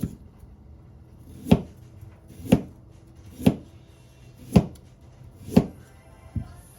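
Knife chopping on a cutting board: five slow, even strokes about a second apart, then a lighter one near the end.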